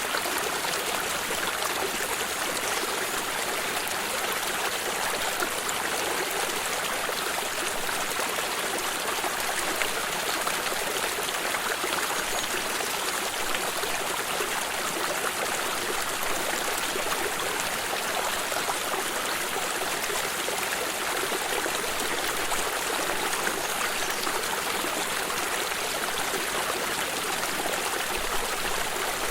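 Flowing stream of water running steadily, an even rushing babble with fine trickling.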